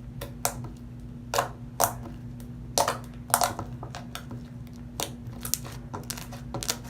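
Homemade glue slime being kneaded and stretched by hand, giving off irregular sticky pops and clicks.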